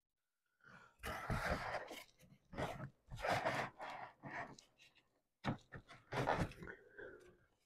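Cardboard and paper-pulp egg crates scraping and rustling against each other as a cardboard divider is wiggled down between them in a plastic tub, in several short bursts.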